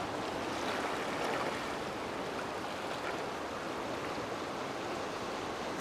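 Steady wash of ocean water surging and lapping over shoreline rocks.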